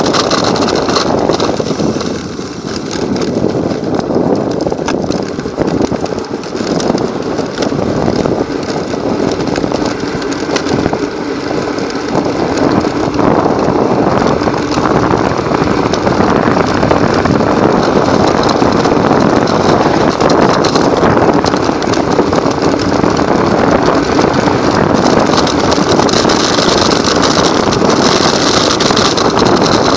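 Modified electric micro scooter being ridden along a road: steady, loud running noise of its electric motor, geared drive and small wheels on tarmac, with wind on the microphone.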